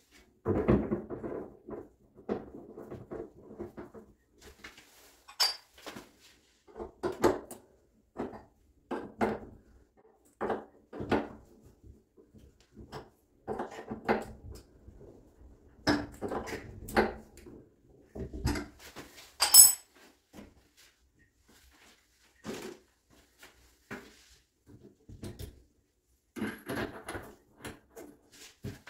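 Small brass tap fittings being handled and fitted onto a shower's wall tap body: intermittent metallic clinks and short scraping sounds, the sharpest click about two-thirds of the way through.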